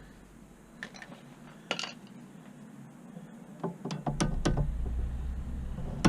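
A couple of faint clicks, then background music comes in about four seconds in, with a low bass and a regular percussive beat.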